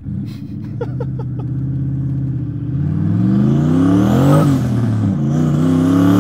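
Turbocharged 4.6-litre two-valve V8 of a 1999 Ford Mustang GT accelerating hard, heard from inside the cabin. The engine pulls steadily, then revs climb through a gear, fall at a shift about four and a half seconds in, and climb again. A faint high whine rises along with the revs.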